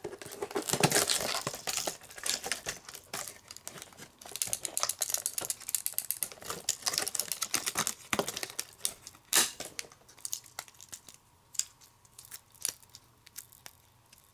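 Clear plastic toy packaging crinkling and crackling as it is pulled open by hand. The crackling is dense for the first eight seconds or so, then thins to scattered clicks and snaps.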